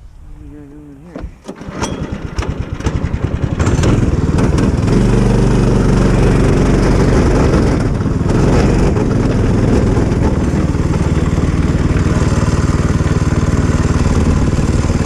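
Go-kart's small engine sputtering up about two seconds in, then running steadily under throttle as the kart drives off.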